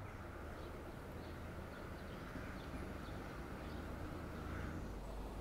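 Quiet city street ambience: a low, steady hum of distant traffic with faint bird chirps now and then.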